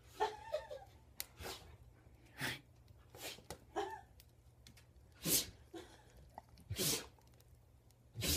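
A dog sneezing over and over, about eight short, sharp sneezes roughly a second apart. The owner puts the fit down to something up its nose.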